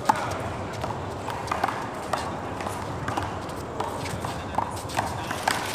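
One-wall handball rally: sharp smacks of the small rubber handball struck by hand and bouncing off the wall and court, coming irregularly about twice a second, the loudest just after the start.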